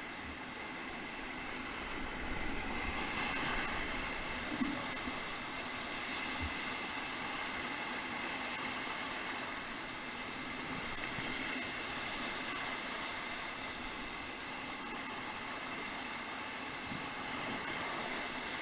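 Whitewater rapids on the river rushing steadily around the raft, with one small knock about four and a half seconds in.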